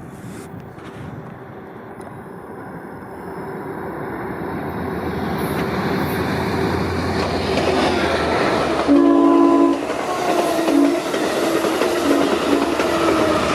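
Diesel passenger train approaching with a rumble that grows steadily louder. Its locomotive horn sounds one strong blast about nine seconds in, then a few shorter blasts: the warning for work equipment and crews on the adjacent track.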